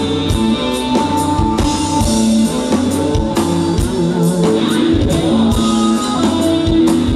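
Rock music with guitar and a drum kit keeping a steady beat, an instrumental passage without singing.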